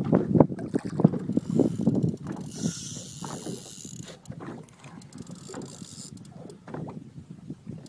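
Spinning reel being cranked to bring in a hooked fish, a rapid run of mechanical clicking that is busiest in the first couple of seconds. A hissing rush sounds from about two and a half to four seconds in.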